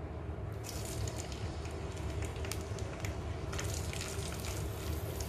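Sliced bitter gourd (karela) dropped by hand into hot oil in a karahi, sizzling and crackling. The sizzle starts about a second in and grows louder about three and a half seconds in as more slices go in. A steady low hum runs underneath.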